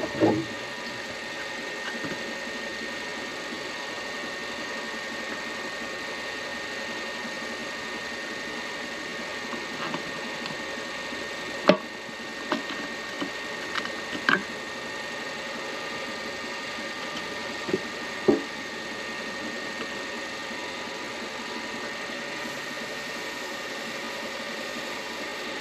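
Small midi lathe motor running with a steady hum. A few brief knocks come about 12, 14 and 18 seconds in while the turned pen blank is wiped down with an alcohol-dampened paper towel.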